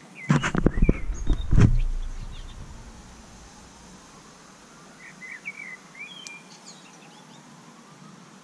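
Several sharp knocks and a heavier thud close by in the first two seconds, then birds chirping briefly a few seconds later over a low background hiss.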